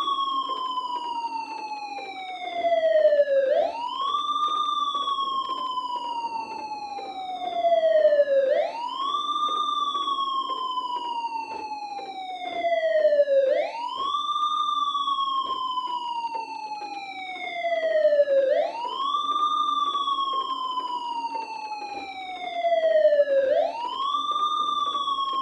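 Civil-defence air-raid siren sounding a rocket alert, wailing in a repeating cycle: the pitch jumps up quickly, then slides slowly down over about five seconds, five times over. It is loudest at the top of each rise.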